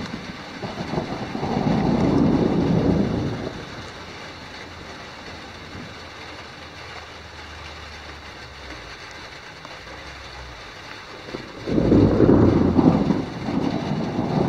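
Thunder rumbling twice over a steady hiss of rain: a swell of about two seconds near the start, and a second rumble that breaks in suddenly about twelve seconds in and carries on to the end.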